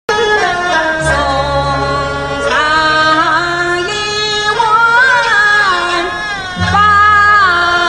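A woman singing a Yue (Shaoxing) opera aria with instrumental accompaniment, her voice gliding and wavering between held notes. It starts abruptly out of silence.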